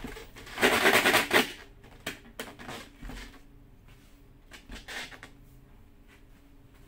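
Brisk rubbing over a KYT racing helmet's shell for about a second, then a few light plastic clicks and taps as the helmet is handled.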